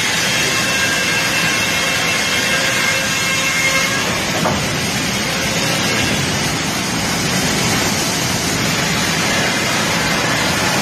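Wood chipper running steadily, a loud, even mechanical noise with no breaks.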